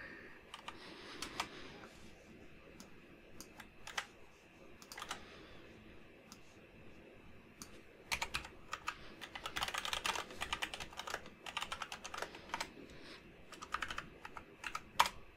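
Typing on a computer keyboard, faint key clicks. At first a few scattered keystrokes, then about halfway through a fast run of typing with short pauses.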